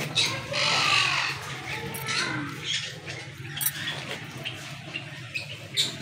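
Pet birds squawking and calling, loudest in the first second, with a few sharp clicks from a wire bird cage being handled.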